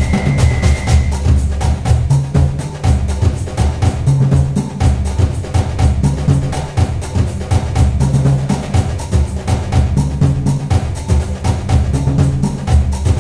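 Background music with a steady drum beat and heavy bass.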